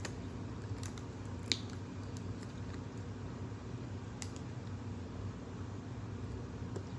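Faint steady low room hum with a few soft, sharp clicks, one about a second and a half in and another about four seconds in.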